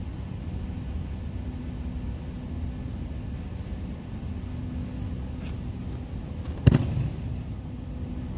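A judoka thrown onto the tatami mats: one sharp, loud landing thud with a breakfall slap about two-thirds of the way through, over a steady low rumble in the hall.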